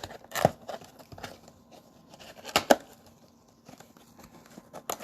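Scattered rustles, crinkles and sharp clicks of trading-card packaging, the cardboard box and the plastic-wrapped packs, being handled on a table, with a cluster of clicks about two and a half seconds in.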